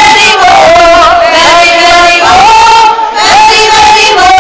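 A small group of women singing together in unison, loud and close to the microphone, in long held notes with a short pause for breath about three seconds in.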